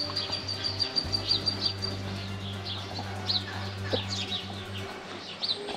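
Small birds chirping in many quick, short calls, with one high whistle held for about two seconds near the start. Under them runs a steady low hum that stops shortly before the end.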